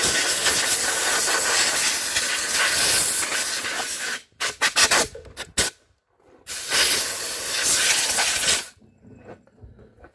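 Compressed-air blow gun hissing as it blows dirt off a small engine: one long continuous blast, then a string of short quick bursts a little after four seconds in, then a second long blast that stops about a second and a half before the end.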